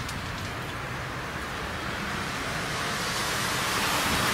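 Steady hiss of rain, growing gradually louder.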